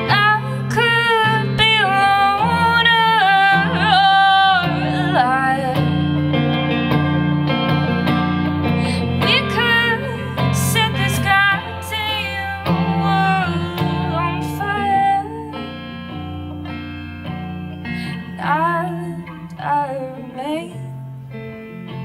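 A woman singing a slow song to her own guitar, with sustained low notes underneath. Her voice drops out for a few seconds past the middle while the guitar carries on, then comes back.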